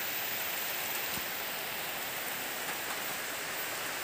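Steady outdoor background hiss, an even rain-like noise with no distinct events.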